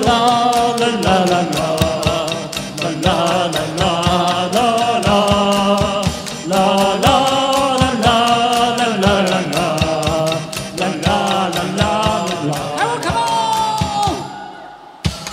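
Otamatones playing a slow melody, their voice-like notes sliding between pitches with a wavering vibrato, over a backing track with a steady low drone and a regular ticking beat. Near the end the melody rises in a slide and fades out.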